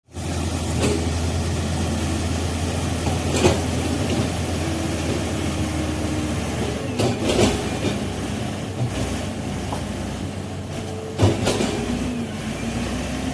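Komatsu D85E SS crawler bulldozer working, its diesel engine running steadily with the tracks clanking. About five sharp metallic clanks stand out, and short whines or squeals come and go; the engine's deep note drops about halfway through.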